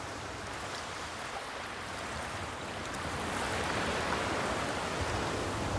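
Shallow surf washing up over the sand at the water's edge, a rushing hiss that swells to its loudest about two-thirds of the way through, then eases.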